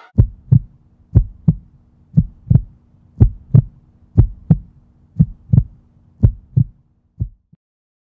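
Heartbeat sound effect: a steady lub-dub double thump about once a second, with a faint low hum underneath. It stops abruptly after about eight beats.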